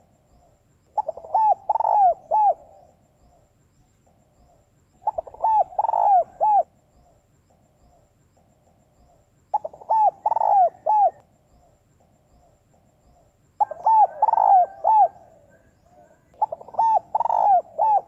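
Female spotted dove calling: five phrases of several low coos each, one about every four seconds, with faint softer calls in the gaps.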